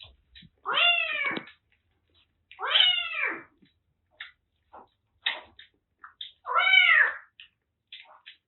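Kittens meowing: three loud, drawn-out meows rising and falling in pitch, with short faint squeaks in between.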